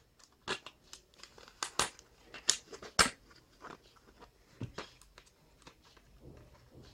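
Small combination padlocks and their plastic packaging being handled: irregular short clicks and crinkles, roughly one or two a second.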